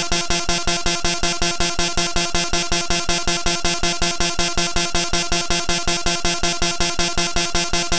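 Bytebeat, a computer-generated waveform from a one-line formula, repeating a buzzing pulse about four times a second over a steady pitched buzz, in imitation of an MRI scanner's sound. The pattern does not change.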